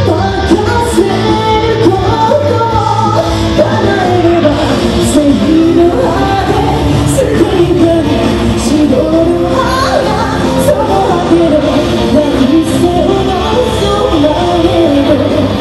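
Loud rock music with a singing voice.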